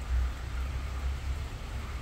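Heavy rain falling steadily, with a low rumble that dies away in the first half second.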